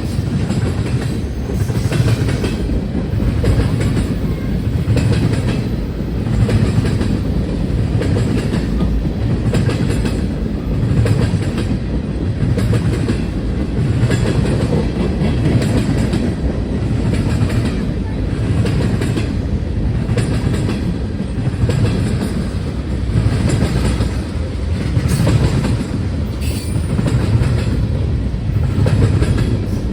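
CN freight train's cars rolling past, their wheels clacking over the rail joints in a steady rhythm that peaks about every two seconds.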